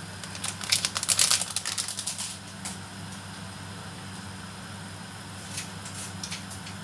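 Crinkling of a gelatin packet being handled: a quick run of crackles and clicks in the first couple of seconds, then a few scattered clicks, over a steady low hum.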